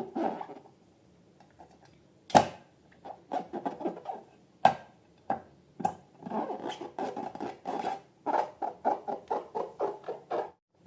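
Slime being squished and worked by hand: runs of short sticky crackles with a few sharp pops, the crackles coming faster near the end.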